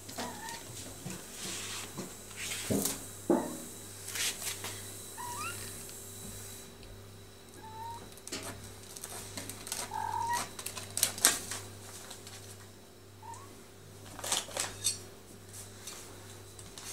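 Kittens giving short, high mews now and then, some rising in pitch, amid scattered sharp clicks and knocks from their play, over a faint steady hum.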